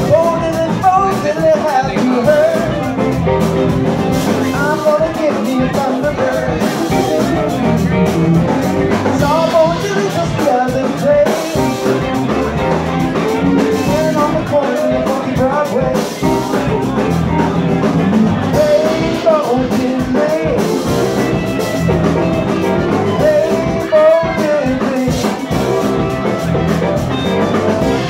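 Live band playing a blues-rock number, with guitar and a drum kit.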